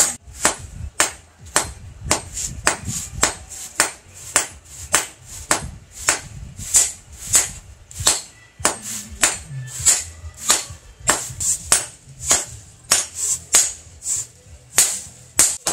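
Blacksmith's hand hammer forging a red-hot steel knife blade on a small post anvil: a steady run of sharp metallic blows, about three a second, with a brief lull partway through.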